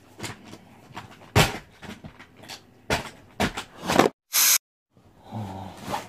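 A series of sharp knocks and bumps, like a cupboard door and things being handled. Just after four seconds a loud hissing burst sits between two short gaps of dead silence, and near the end there is a low, voice-like sound.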